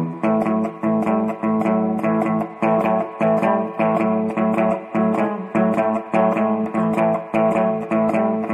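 Guitar intro music: plucked guitar notes in a steady repeating rhythm.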